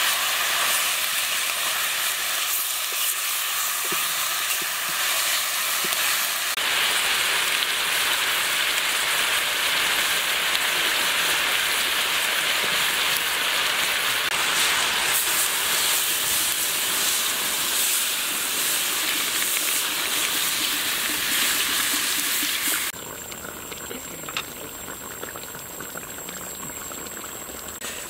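Catfish pieces sizzling in hot oil in a wok, a loud steady hiss. About three quarters of the way through it cuts to a quieter bubbling of the catfish simmering in its liquid.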